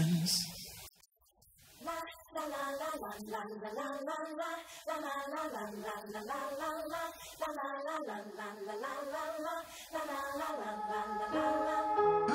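Background song: a sung vocal line with little or no accompaniment, after a brief drop-out about a second in.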